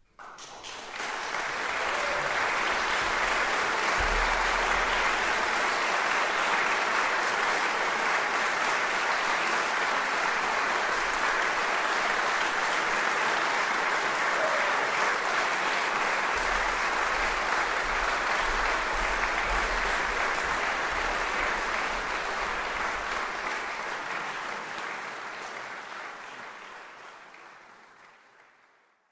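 Concert audience applauding, breaking out suddenly and then fading out near the end.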